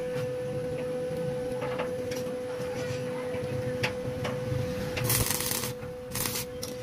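Arc welder tack-welding steel rods: two short bursts of sizzling arc crackle, about five and six seconds in, with a few light metal clicks before them over a steady hum.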